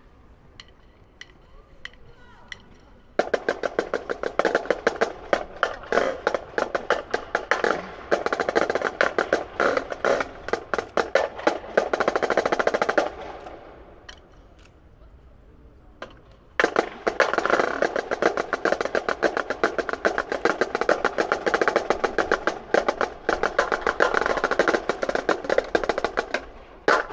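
Marching band drumline of snare drums and bass drums playing a fast cadence of rapid strokes. It plays in two long passages, the first starting about three seconds in, with a pause of about three seconds between them.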